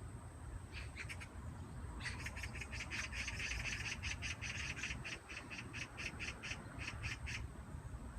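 Magpie chattering: a few short harsh calls, then a long rapid rattling run of about five notes a second that stops shortly before the end.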